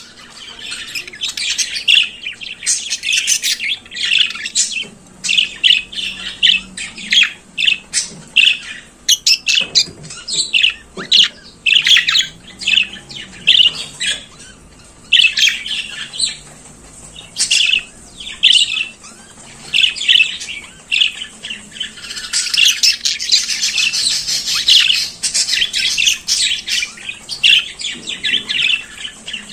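Budgerigars chattering and warbling: a continuous run of short chirps, squawks and whistles, busiest near the end.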